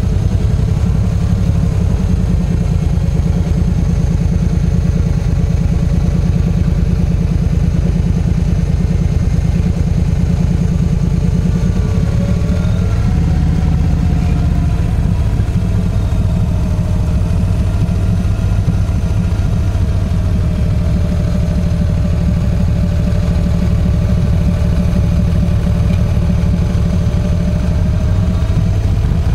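Yamaha V Star 1300's V-twin engine running at low road speed as the motorcycle rolls along, a steady low rumble throughout. A faint wavering whine sits above it from about halfway in.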